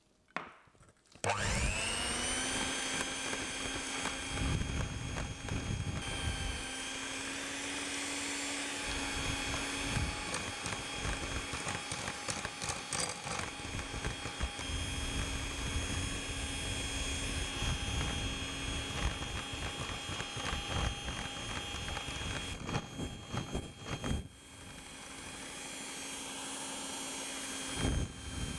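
Electric hand mixer switched on about a second in, its motor whining up to speed and then running steadily as the beaters churn creamed butter, sugar and egg in a glass bowl, with irregular knocks of the beaters against the bowl. Near the end the motor drops lower for a couple of seconds, then picks up again.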